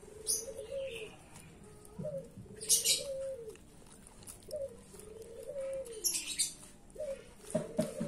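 A dove cooing, repeating the same short phrase about every two and a half seconds. Between the coos come a few short scratchy rustles, the loudest about three seconds in, and a rapid pulsing sound begins near the end.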